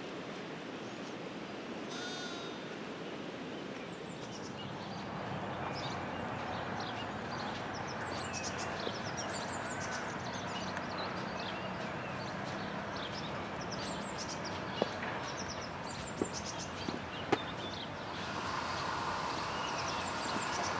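Outdoor ambience: a steady rushing background noise with small birds chirping, and a few sharp clicks near the end.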